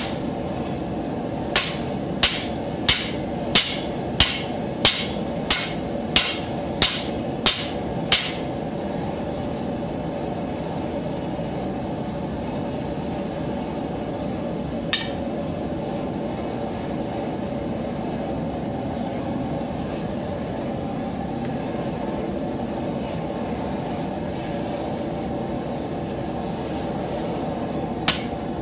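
Hand hammer striking a hot plow share blank on an anvil, about a dozen ringing blows at a steady pace of roughly one and a half a second, stopping about eight seconds in while the steel is reheated. A propane forge burner runs with a steady rush throughout, with a single light knock about halfway through, and the hammer blows start again near the end.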